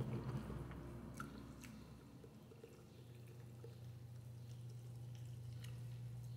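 Faint chewing of instant noodles and soft-boiled egg, with a few sharp mouth or utensil clicks. A steady low hum sets in about halfway.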